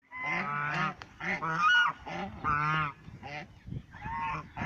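Several waterfowl calling together, in about five bouts of overlapping calls, each bout under a second long with short gaps between.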